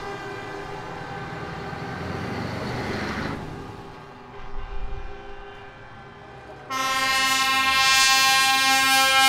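A truck drives past, its engine and road noise swelling and then fading. About two-thirds of the way through, a loud truck air horn starts suddenly and holds a steady blare.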